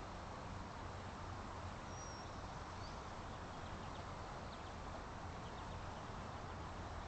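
Steady rushing outdoor background noise. A brief high whistle comes about two seconds in, and a few faint, high bird chirps follow a little later.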